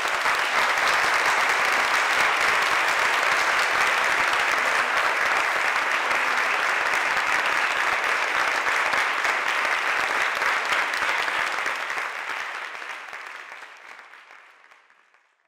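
Audience applauding steadily, then fading away over the last few seconds.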